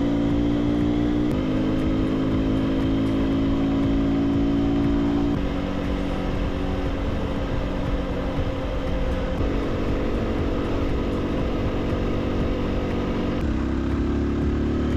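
Aprilia Tuono 125's single-cylinder four-stroke engine running at fairly steady revs under way, with a rushing noise behind it. Its pitch and level change in steps a few times.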